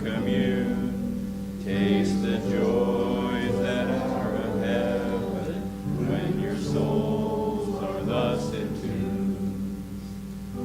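Congregation singing a hymn together with piano accompaniment, in phrases of a few seconds with short breaks between them.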